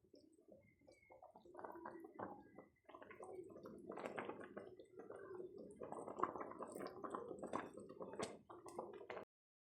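Faint, irregular wet squelching and gurgling sounds, which cut off suddenly near the end.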